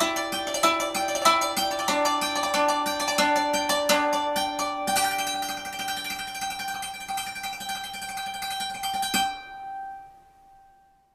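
Salimbaa, a Philippine instrument, played as a fast run of plucked notes. A last note about nine seconds in rings on and fades away.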